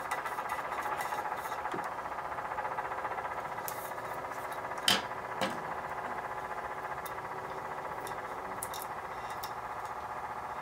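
A steady background hum made of many tones, with a sharp tap about five seconds in and a softer one just after, from a stainless steel tumbler mug being handled.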